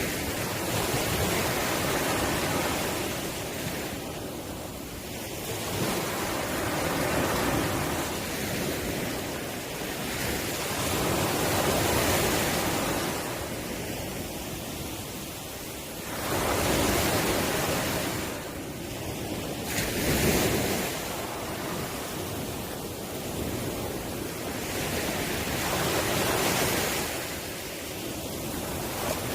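Ocean waves washing onto the shore, a steady rush that swells and falls back every few seconds as each wave breaks.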